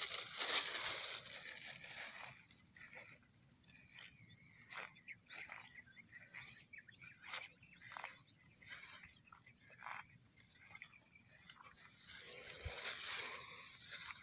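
Insects chirring steadily at a high pitch in a rice paddy, with a string of soft rustles, about one or two a second.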